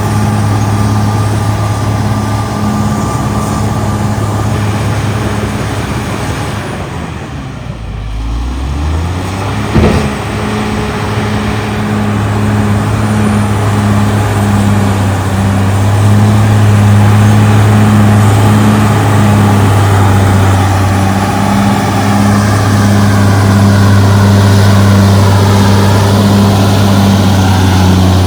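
Caterpillar D6R XL bulldozer's diesel engine running steadily. About a third of the way in the engine dips in pitch and climbs back, then a single sharp knock is heard. The engine runs louder through the second half.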